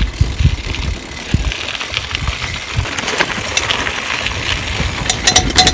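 Mountain bike being ridden over rough ground, with low rumbling and wind buffeting on the microphone. A dense run of clicking and rattling comes in near the end.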